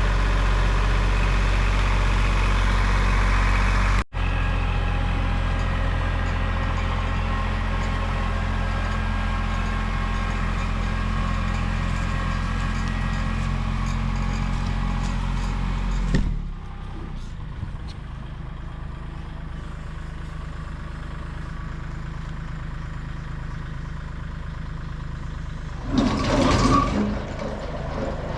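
Kubota L2502 compact tractor's diesel engine running steadily, with a brief break about four seconds in. About sixteen seconds in it drops to a lower, quieter running, and near the end there is a short, louder burst of sound.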